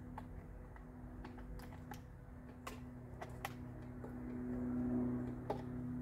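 Light, irregular clicks and taps of hands handling the plastic housing of a stopped Stihl MS170 chainsaw, about eight sharp clicks spread unevenly, over a steady low hum.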